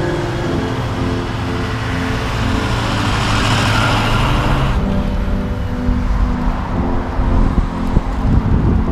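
Road traffic passing close by under background music: a vehicle's tyre and engine noise swells to a peak about four seconds in and cuts off abruptly just before five seconds, over a steady low traffic rumble.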